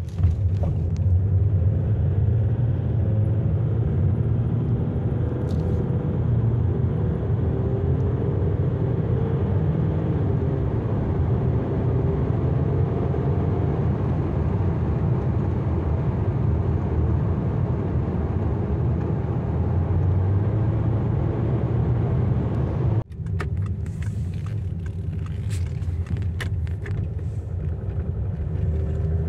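Citroën C6's salvaged UHZ 2.7 V6 HDi diesel engine idling steadily while warming up. The engine has a subtle knocking in the injection, which the owner suspects is an injector slightly sticking. The sound breaks off sharply about 23 seconds in, then resumes with faint sharp clicks over the idle.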